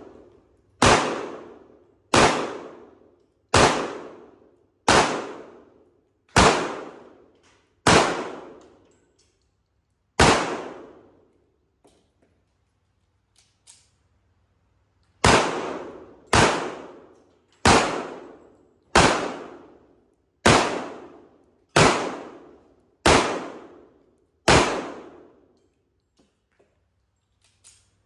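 Sig Sauer 1911 Spartan .45 ACP pistol fired in slow aimed single shots, about one every 1.3 seconds, each report ringing out for about a second. Seven shots, then a pause of about five seconds with a couple of faint clicks while the pistol is reloaded at the table, then eight more shots.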